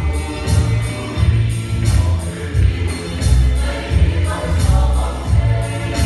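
Mixed youth choir singing a gospel song in Mizo over backing music, with deep bass notes pulsing about once a second and a light, regular percussion beat above.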